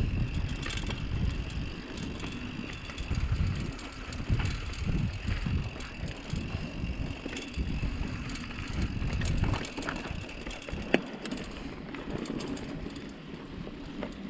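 Mountain bike rolling down a loose, dusty dirt trail: tyres crunching and rumbling over dirt and rocks, with rattling from the bike. The rumble is heavier for most of the stretch, eases near the end, and a single sharp knock comes about eleven seconds in.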